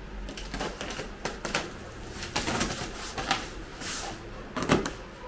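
Plastic wrap and packing on a boxed TV rustling and crinkling as it is cut and pulled open, in irregular crackles with a few sharper rips, the loudest near the end.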